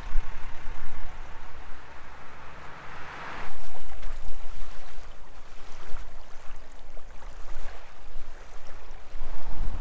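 Wind buffeting the microphone in uneven gusts. After a change about three and a half seconds in, small waves lap at a sandy lakeshore.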